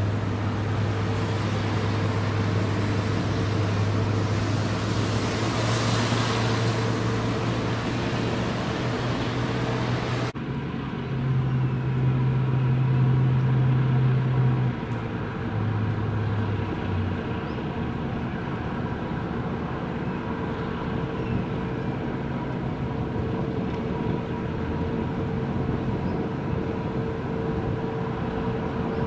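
Steady low drone of diesel engines with a constant hum above it. After a cut about ten seconds in, the lowest note shifts up and then stops around seventeen seconds, leaving the hum.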